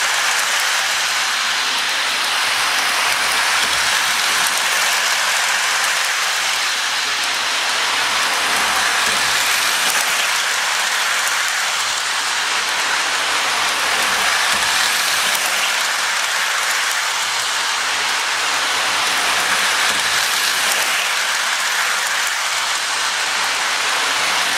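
Lionel O-gauge toy train running steadily around a loop of tubular three-rail track: a continuous mechanical whir and rattle from its motor, gears and wheels.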